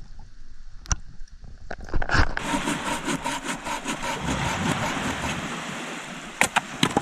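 Rushing sea water, surf or swimming through the shallows, swelling in about two seconds in. There are a few sharp knocks near the end.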